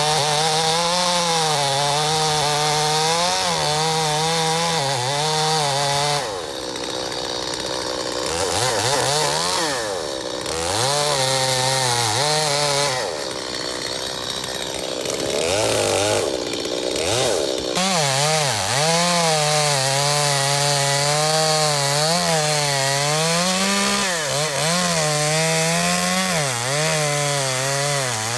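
Two-stroke chainsaw cutting into a red elm stump at high revs, its pitch wavering as the chain loads in the wood. For a stretch in the middle the saw drops to lower, uneven revs, then goes back to full throttle and cutting.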